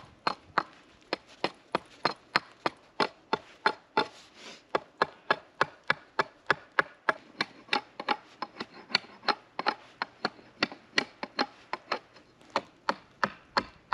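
Council Tool hunter's hatchet chopping knots off an air-dried, debarked Douglas fir branch: a quick, even run of short sharp strikes, about three or four a second.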